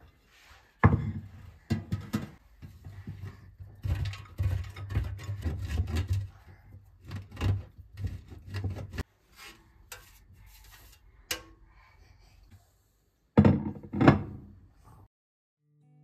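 Mozzarella being grated on a stainless steel box grater, a run of rubbing strokes. It stops about nine seconds in, and two thumps on a bamboo cutting board follow near the end.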